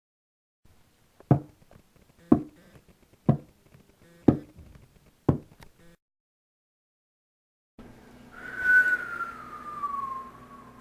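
Five sharp knocks about a second apart, then, after a pause, a whistle that slides down in pitch over a couple of seconds.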